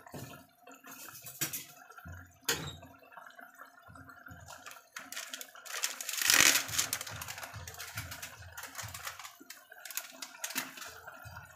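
Pork humba braising at a boil in a stainless steel pot: the dark sauce bubbles with many small irregular pops and crackles, and a louder hiss rises about six seconds in. The pork is being boiled until it softens and takes up the seasonings.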